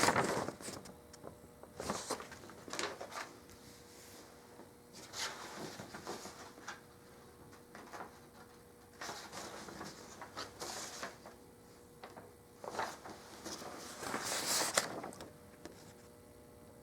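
Irregular handling noises, short rustles and light knocks scattered through the pause, the loudest near the end, over a faint steady hum.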